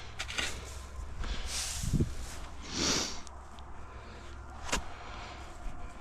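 Straw being handled and spread: rustling and scattered knocks, with a low thump about two seconds in and a short breathy hiss about a second later.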